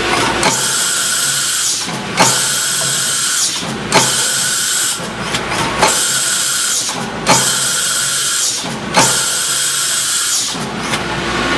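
UGINT PT400S BT30 high-speed machining centre cutting metal in six repeated passes of about a second and a half each. Each pass starts sharply with a hissing cut and steady tones, and short breaks come between passes as the tool moves on to the next feature. The sound settles into a steadier spindle run near the end.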